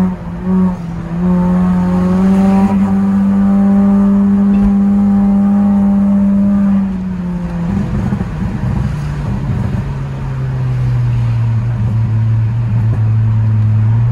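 Decatted Honda CR-Z's 1.5-litre four-cylinder with an aftermarket air intake, heard from inside the cabin, pulling steadily at high revs. About seven seconds in the throttle is lifted: the note drops, with a short stretch of rough crackling from the tuned exhaust, then settles into a lower steady drone as the car coasts.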